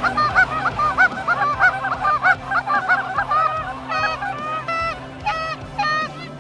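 A flock of Canada geese honking, many calls overlapping densely at first, then thinning to fewer, clearer single honks in the last few seconds.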